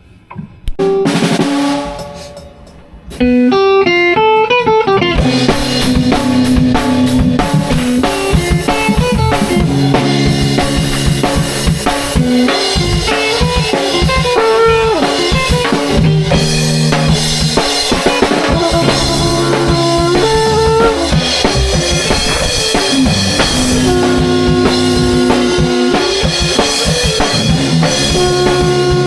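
Live band improvising with a drum kit and pitched instruments: after a few loose drum hits and a descending run, the full band comes in about three seconds in and plays on steadily, with held low notes under a moving melody.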